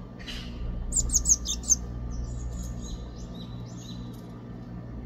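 Young Japanese tit calling: a series of short, high chirps, with a louder run of quick descending notes about a second in.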